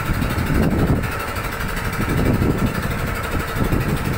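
Boat engine running steadily under way, with gusty wind buffeting the microphone.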